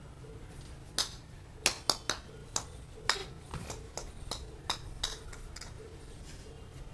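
A string of about a dozen sharp clicks at an uneven pace. They start about a second in and stop shortly after the five-second mark, over faint low background noise.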